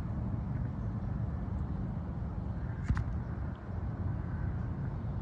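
Steady low outdoor background rumble, with one sharp click about three seconds in.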